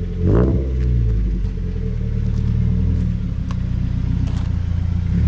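Car engine running at a steady idle, with a short rev about half a second in.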